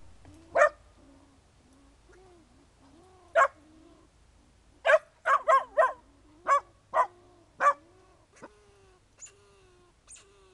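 Buckley mountain feist pup barking at squirrels caged in a wire tube, baying at its quarry: two single sharp barks, then a quick run of about seven between roughly five and eight seconds in. A faint whine carries on between the barks.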